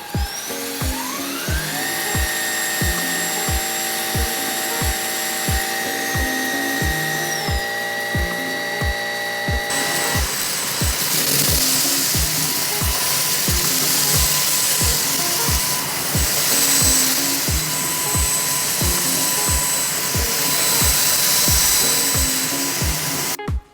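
Bosch Ultimate 9 cordless stick vacuum motor spinning up with a rising whine, then running steadily; about ten seconds in, its sound changes to a louder, hissier rush. Background music with a steady beat plays throughout.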